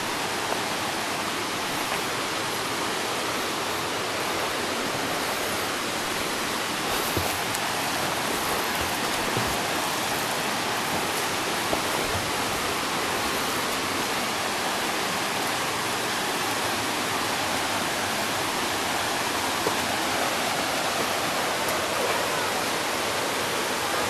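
Steady rush of a low waterfall spilling into a large pool.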